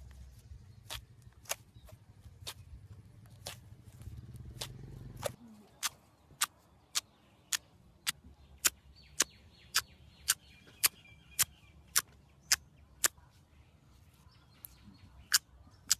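Slime being played with by hand, giving sharp clicks about two a second, with a short pause near the end. A low rumble underneath cuts off suddenly about five seconds in.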